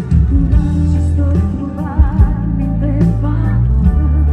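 A woman singing a Neapolitan pop song live over a band backing with a steady beat, her held notes wavering in vibrato in the middle.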